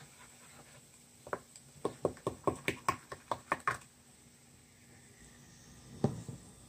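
A quick run of about a dozen light plastic clicks, roughly five a second, as a plastic syringe knocks against a small plastic cup. A single thump follows near the end.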